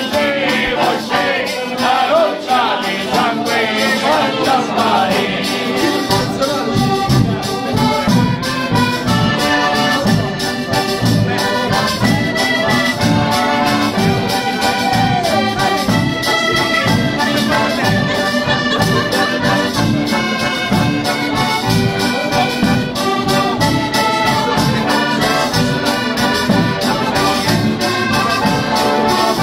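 Traditional Abruzzese folk music: a small diatonic button accordion (organetto) playing the melody over a steady frame-drum beat, with voices singing in the first few seconds before the instruments carry on alone.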